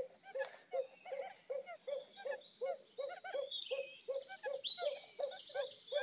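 A barred buttonquail calling: a low hoot repeated steadily about three times a second, with small birds chirping higher in the background.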